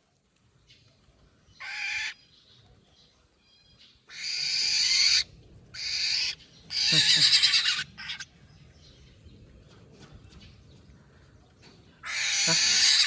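A young bird's harsh, raspy begging calls as it is hand-fed: about five calls of half a second to a second each, separated by short quiet gaps.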